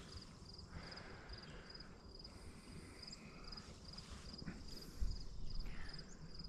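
Insect chirping steadily in riverside grass, a short high trill repeated about twice a second. A brief low rumble with rustling comes about five seconds in.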